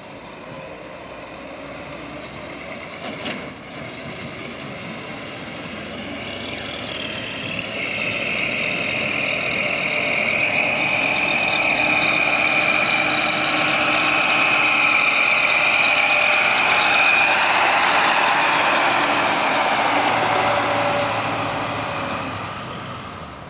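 Dump truck driving past, its engine running steadily as it comes closer, loudest in the middle and fading as it pulls away. A high steady whine rides over the engine while the truck is near.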